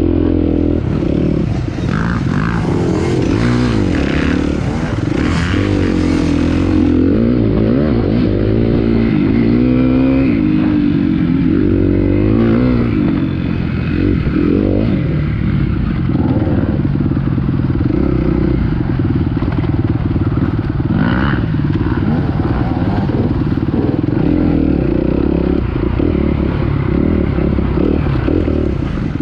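Dirt bike engine running hard, its pitch rising and falling over and over as the throttle opens and closes, steadier in the second half, with a few short knocks along the way.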